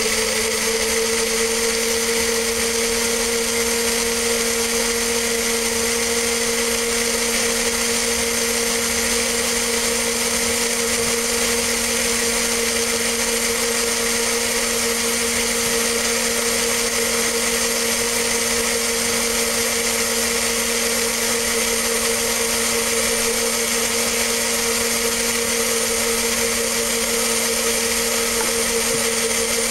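Electric blender running at one steady speed, its motor whining at a constant pitch as it purees fruit and coconut milk into a smoothie.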